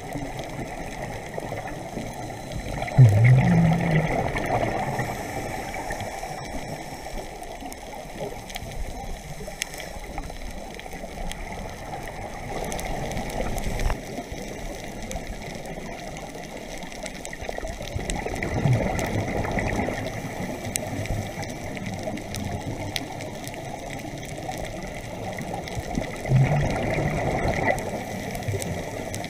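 Underwater, a scuba regulator's exhaled bubbles gurgle past the microphone in four bursts, the loudest about three seconds in and near the end. Between them there is a steady rushing hiss of water.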